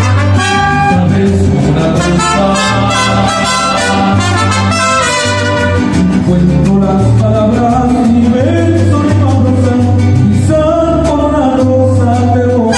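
Mariachi band playing, with trumpets, strings and a steady bass line, and a voice singing over them.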